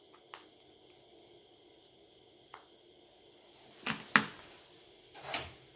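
Small clicks and taps of hand tools against a smartphone's parts during reassembly: two faint clicks, then three sharper taps in the last two seconds.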